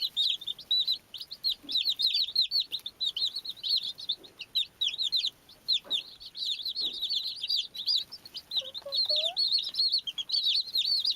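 Baby chicks peeping constantly, many short high cheeps overlapping with no pause.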